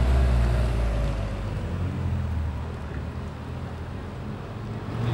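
A Mazda MX-5 sports car's engine running as it drives slowly past and away. Its low note is loudest at first and fades over the first couple of seconds.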